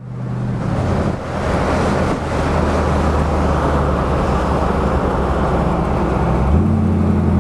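Car engine running at road speed, heard from inside the moving car with tyre and wind noise, fading in over the first second. The engine note drops about a second in and rises again near the end.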